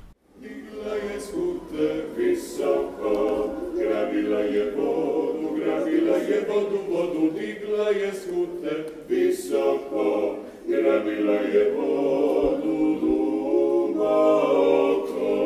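Several voices singing together without instruments, sustained in harmony, beginning about half a second in.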